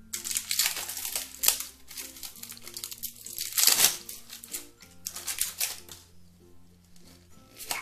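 Plastic film wrapped around a store-bought slime ball crinkling as hands handle it, in several noisy bursts, the loudest about three and a half seconds in. Upbeat background music runs underneath.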